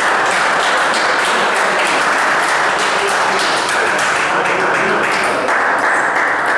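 Audience applauding steadily in a hall after a table tennis point is won.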